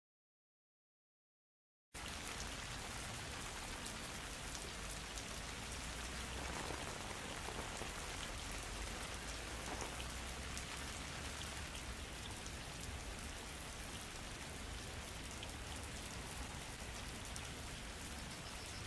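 Total silence, then about two seconds in, a steady rain starts falling and keeps up evenly.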